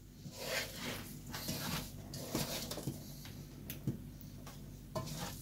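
A wooden spoon stirring and scraping kalijira rice as it fries in a pot, with a faint sizzle and irregular scratchy strokes.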